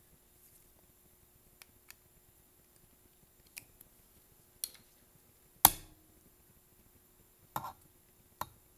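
A small carburetor and a metal hand tool being handled while the carburetor is refitted to a string trimmer: about seven scattered light clicks and taps, the loudest a sharp knock a little past halfway.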